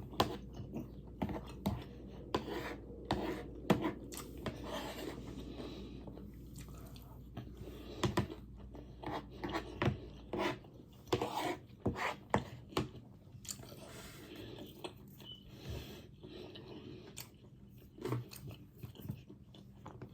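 A person chewing and biting food close to the microphone, with irregular crunches and wet mouth sounds. A steady low hum underneath stops about halfway through.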